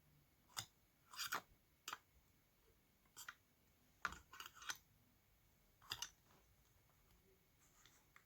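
Faint, irregular clicks and short scrapes of small metal parts being handled and fitted while a vacuum cleaner motor is put back together.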